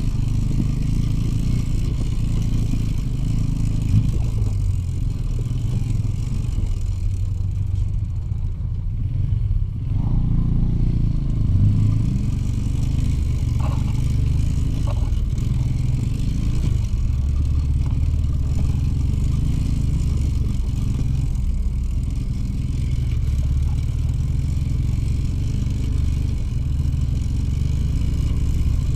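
Soviet two-stroke motorcycle engine running while riding a rough dirt track. The engine note eases off about eight seconds in and picks up again around ten seconds.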